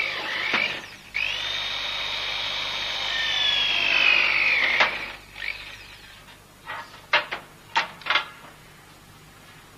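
Corded electric drill boring holes through a sheet-steel car body repair panel for plug welding, its high motor whine sagging in pitch as the bit bites. It stops briefly about a second in, runs again for about four seconds and stops; a few short knocks and clatters follow.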